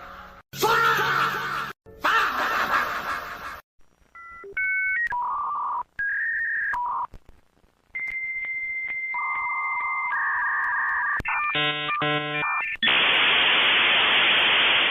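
A string of short meme sound effects, one after another. First a snippet of music with a brief break. Then a run of electronic beeps jumping between pitches, long steady bleep tones, a short buzzy chord-like tone, and finally about two seconds of hissing static that cuts off suddenly.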